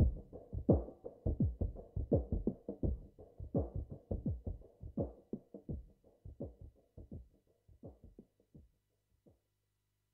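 Sequenced electronic chillout music from a Roland FA-06 and MC-808 synth setup: a drum-machine beat with synth notes, fading out steadily and stopping about nine seconds in.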